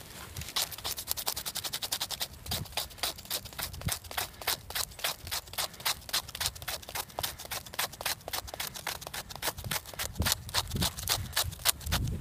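Hand saw cutting through a branch in quick, even strokes, a short rasp several times a second.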